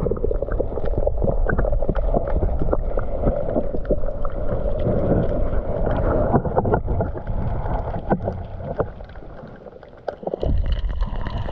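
Water sloshing and gurgling, heard through a GoPro microphone held under water: a muffled, steady rumble with scattered clicks and knocks, dropping away briefly near the end.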